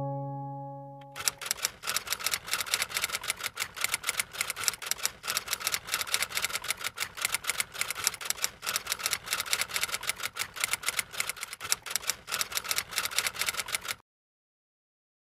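Typewriter sound effect: a fast, unbroken run of key clicks that starts about a second in and stops abruptly near the end, cutting to silence. A held piano chord dies away in the first second.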